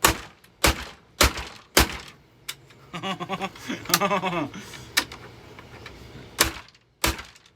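Hammer blows smashing a Hoover vacuum cleaner's housing: four sharp thunks about half a second apart, then a pause, then four more strikes in the second half.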